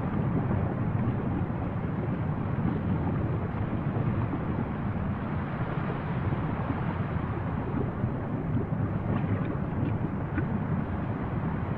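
Erupting volcanic spatter cone fountaining lava: a steady low rumble, with a few faint crackles near the end.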